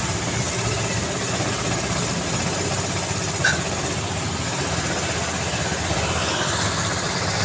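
Steady urban road traffic: a continuous wash of engine and tyre noise from passing vehicles, with one brief sharp high-pitched blip about halfway through.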